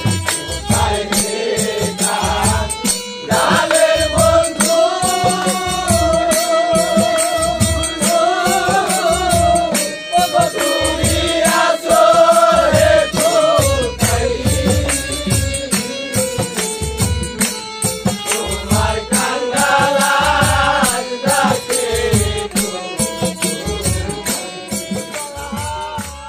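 Men singing a Bengali bicched gaan devotional folk song together in chorus, in long wavering phrases over a steady drum beat of about two strokes a second. The music fades out near the end.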